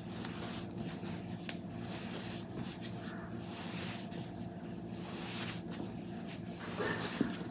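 Hands kneading a soft egg-and-flour dough on a floured stone countertop: irregular soft rubbing, pressing and patting strokes, with a slightly louder knock near the end. A faint steady low hum runs underneath.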